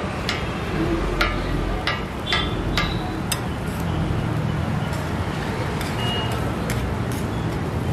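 Metal spatula clinking and scraping on a flat iron griddle as it tosses and chops fried pieces, a run of sharp metallic clicks that come thickest in the first few seconds and thin out later. A steady rumble of street traffic runs underneath.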